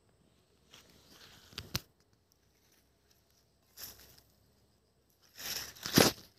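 Rustling and crunching of dry leaves and soil underfoot in a few short scattered bursts, the loudest near the end, between stretches of near quiet.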